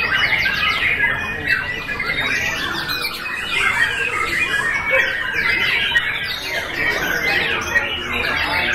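Several white-rumped shamas (murai batu) singing at once, a dense overlapping chorus of quick rising and falling notes.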